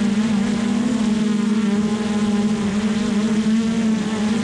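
Hubsan Zino Pro quadcopter's motors and propellers humming while the drone hovers, picked up close by a GoPro mounted on top of it. It is one steady hum that wavers slightly in pitch.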